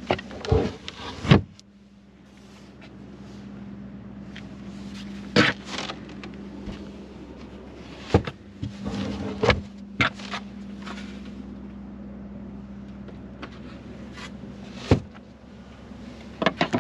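A hand handles a car boot's carpeted load-floor panel and trim, lifting the panel by its handle, with scattered knocks and taps and some rustling over a steady low hum.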